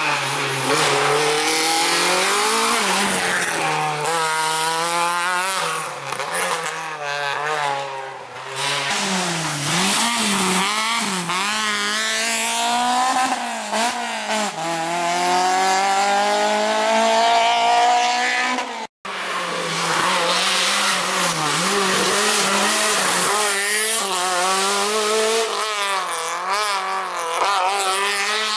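Rally car engines being driven hard past one after another, revving up through the gears, with the pitch climbing and then dropping at each gear change or lift-off. The sound cuts out briefly once, about two-thirds of the way in.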